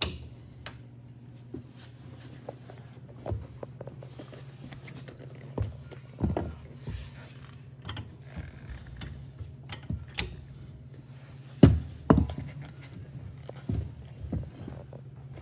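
Irregular knocks and thumps from a large tundra tire and wheel being handled and lined up on a landing-gear axle beside its brake caliper, the loudest two thumps about three-quarters of the way through, over a steady low hum.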